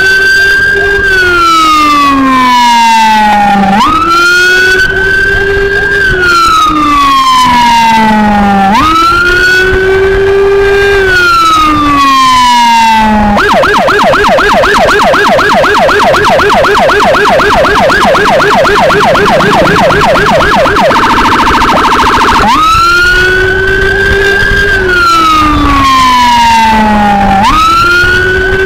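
Electronic emergency siren, a CJB 200E, sounding a wail: the tone jumps up, holds briefly and falls slowly, about every five seconds. About halfway through it switches to a fast yelp sweeping several times a second, then a brief steady buzzing tone, then back to the wail.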